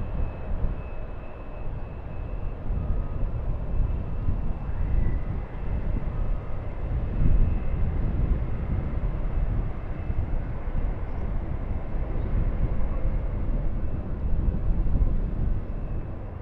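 Boeing 747-400's four turbofan engines running, a steady deep rumble with a faint high whine over it.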